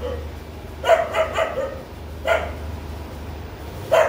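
Household dog barking in short bursts: a quick run of about three barks a second in, one more a little after two seconds, and another near the end.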